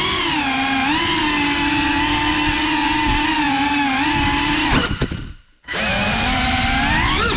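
Ducted 3.5-inch FPV cinewhoop drone (BetaFPV Cinelog 35) in flight, its brushless motors and propellers giving a steady whine that rises and dips slightly with throttle. About five seconds in, after a couple of clicks, the whine cuts out almost completely for about half a second, then comes back.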